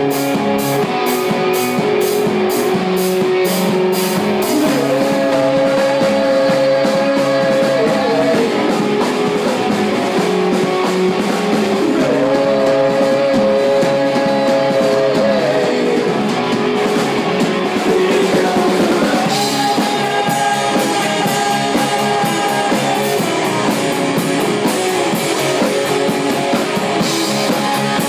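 Live rock band playing: Telecaster-style electric guitar, electric bass and drum kit, with long held notes that waver at their ends, three times.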